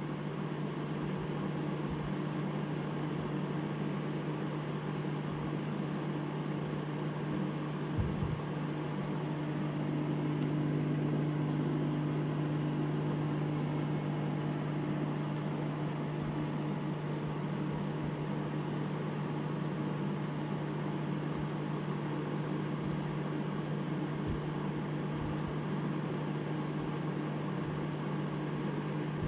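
Steady hum of aquarium equipment: an air pump's low drone under a constant hiss of bubbling from the air line, with a soft bump about eight seconds in.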